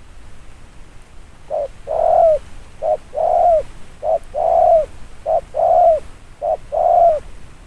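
Spotted dove cooing: after a pause of about a second and a half, five coo phrases in steady succession, each a short note followed by a longer one that drops in pitch at the end.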